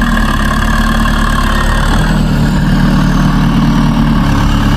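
Engine idling steadily, its hum shifting slightly in pitch about two seconds in.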